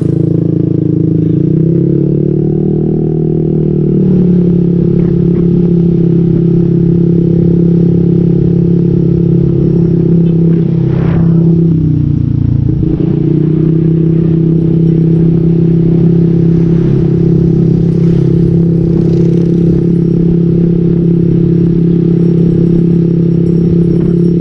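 Motorcycle engine breathing through an SC-Project aftermarket exhaust with a modified elbow, running steadily at an even pitch. About eleven seconds in, the pitch briefly drops and then climbs back.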